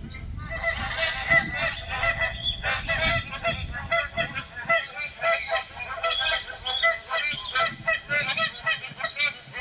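Magpie geese honking: a fast, continuous run of short calls, several a second.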